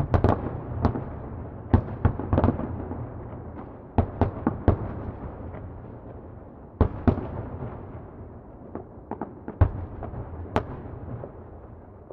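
Distant fireworks exploding: many sharp bangs at irregular intervals, some in quick clusters, over a continuous rolling rumble of echoes.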